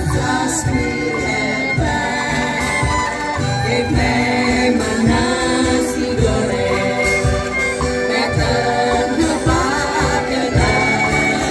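Angklung ensemble playing a song, the shaken bamboo tubes sounding in held chords, with a woman singing into a microphone over a steady beat from a cajon and guitar.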